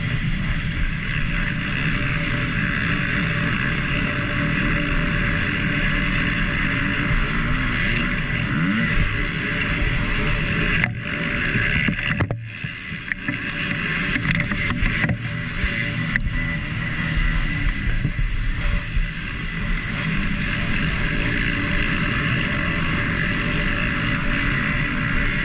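Four-stroke 250 cc single-cylinder motocross bike engine, a KTM SX-F 250, running hard under race throttle with wind noise. The throttle briefly closes twice, about eleven and twelve seconds in, before the engine pulls hard again.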